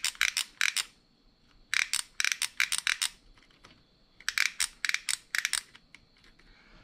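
Solder and its rosin flux crackling and spitting as they melt onto a wire splice under a soldering gun: three bursts of rapid sharp crackles, a second or so each, with short quiet gaps between.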